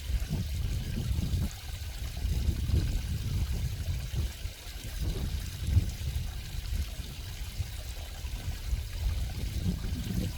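Water flowing in a stream, a continuous trickling and burbling that swells and eases without a break.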